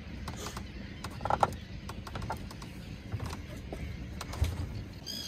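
Low steady rumble of the towing motorboat's engine, with a short bird call about a second and a half in.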